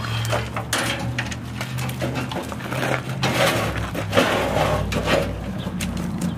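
Rusty steel truck frame section clanking and scraping on a metal wheelbarrow as it is loaded and wheeled off, with irregular crunching over gravel. A steady low hum runs underneath.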